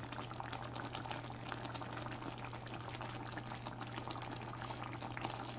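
Cornstarch-thickened gravy with steak and potatoes simmering in a cast-iron skillet: a steady bubbling with many small crackling pops. A steady low hum sits underneath.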